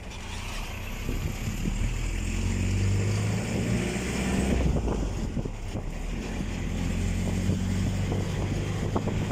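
Low, steady engine hum with wind rumbling on the microphone.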